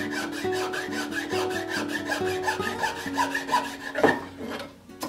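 A thin hand file rasping against the wooden body of a transitional plane in quick, short, repeated strokes, enlarging the plane's mouth so the blade will fit. A louder stroke comes about four seconds in, and the filing stops near the end.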